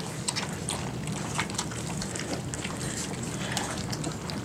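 A litter of three-week-old puppies lapping and slurping milk formula from a stainless steel pan, a steady, irregular patter of small wet clicks.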